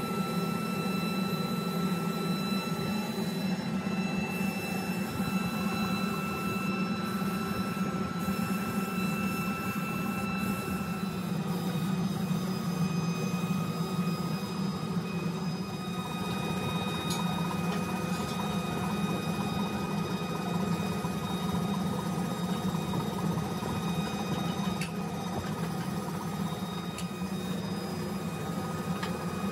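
Steady hum of workshop machinery running, with a few thin high whining tones that shift about eleven seconds in and faint occasional ticks.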